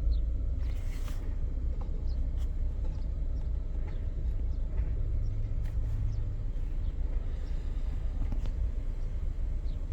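Steady low rumble of a car idling, with a few faint clicks.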